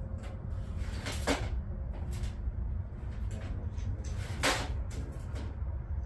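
A few sharp clacks and knocks of hand tools being picked through and handled, the clearest about four and a half seconds in, over a steady low hum.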